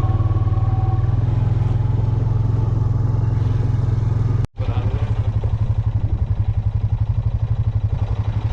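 Vehicle engine running with a steady low rumble. It cuts out briefly about four and a half seconds in, then resumes with a more pulsing rumble.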